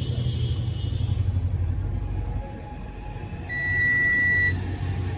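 A single electronic beep lasting about a second, from the control panel of an LG top-load washing machine that has been brought back to life, over a steady low rumble.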